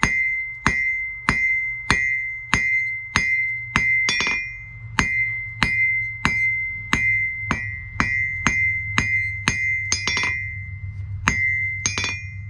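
Hand hammer blows on hot steel drawn out on an anvil, a steady rhythm of about one and a half blows a second, each blow setting the anvil ringing loudly with a high, bell-like tone. The anvil rings so loud because its present stand does not deaden it. There is a short pause in the blows near the end.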